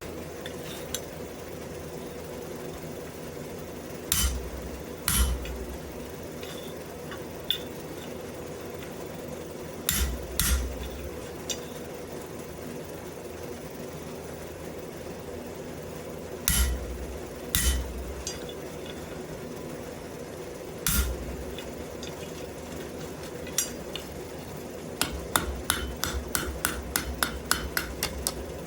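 Hammer blows fullering a piece of wrought iron: single and paired heavy metal strikes several seconds apart, then a quick run of lighter blows, about four a second, near the end. A steady hum runs underneath.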